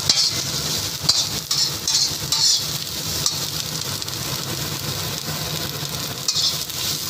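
Diced carrots and spring onion whites sizzling in a little oil in a black wok while a steel spoon stirs and scrapes them, with a few sharp taps of metal on the wok. The sizzle swells with the stirring in the first couple of seconds, eases in the middle and picks up again near the end, over a steady low hum.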